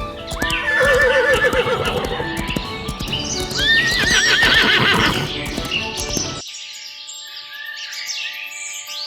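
A horse whinnying twice, each call starting high and wavering as it falls, with hooves clip-clopping, over background music. The horse and hoof sounds cut off suddenly about six seconds in, leaving the music.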